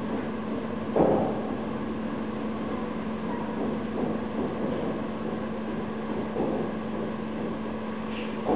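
Steady mechanical hum with one constant low tone under a wash of noise, broken by a short louder noise about a second in.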